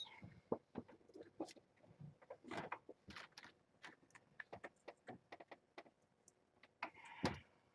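Kittens moving about in their pen: scattered faint taps, scratches and rustles, with a louder rustle about two and a half seconds in and another near the end.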